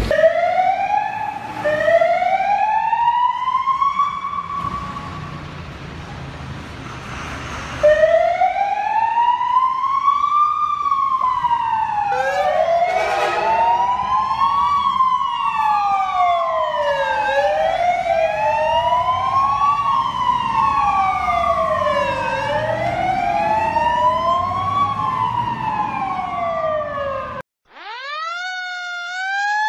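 Emergency-vehicle sirens wailing, the pitch sweeping up and down about every two seconds. From about twelve seconds in, two sirens wail together out of step. Near the end the sound cuts out briefly and another siren starts rising.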